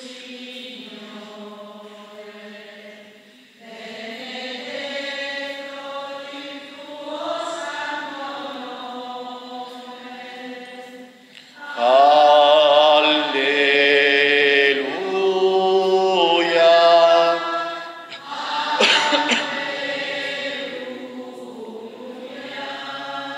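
Hymn sung in church, the voices holding long notes and growing louder about halfway through. It is the offertory hymn of the Mass.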